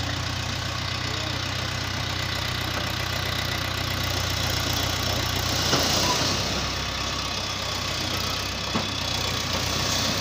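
Tractor diesel engine running steadily while its hydraulics hold the tipping trolley raised. Bricks slide and clatter out of the trolley, with a short louder rush about six seconds in and a sharp knock near the end.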